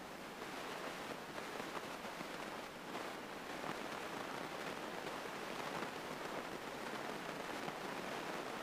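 Faint, steady hiss of a light airplane's cabin noise picked up through the headset intercom, with no distinct engine note standing out.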